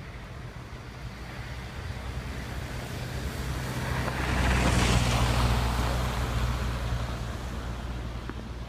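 A vehicle driving past, its tyre noise and engine hum swelling to a peak about five seconds in and then fading away.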